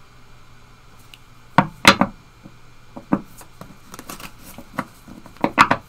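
A deck of tarot cards being handled: sharp taps and clicks as the cards are tapped and drawn, loudest about two seconds in, with lighter ticks after and a quick cluster of clicks near the end.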